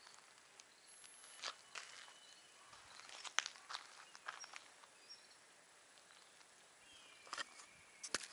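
Quiet outdoor ambience with a few soft scattered clicks and scuffs, and some faint high chirps.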